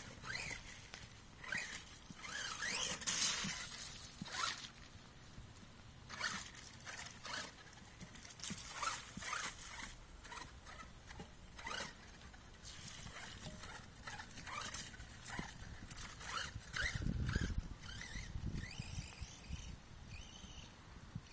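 Brushless electric motor of a 1/8-scale RC monster truck whining up and down in short bursts of throttle as it is driven through mud and puddles, with scattered crackling noises between the revs.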